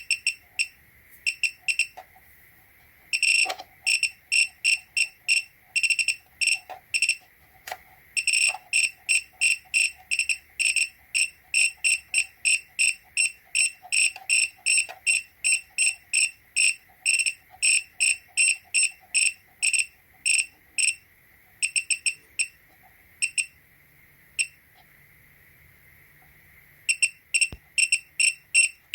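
Electronic beeper of a variable bench power supply giving short high-pitched beeps in quick, irregular runs with pauses between them, over a faint steady high whine.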